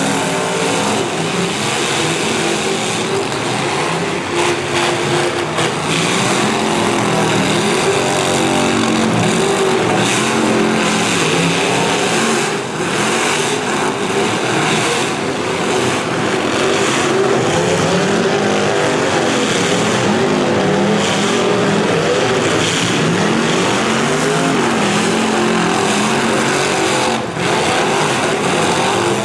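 Several V8 demolition derby cars running and revving at once, their engine notes rising and falling over each other. A couple of sharp bangs cut through, about halfway and near the end.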